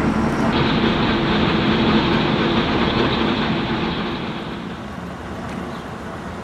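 Engines of a column of tracked armoured vehicles running steadily, with a dense mechanical clatter; the noise drops in level about four seconds in.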